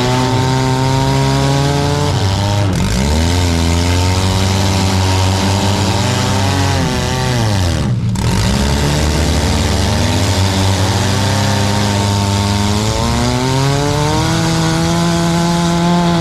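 Four-cylinder demolition derby car engines revving hard, their pitch rising and falling, with sharp drops in revs about three and eight seconds in and the revs climbing again near the end.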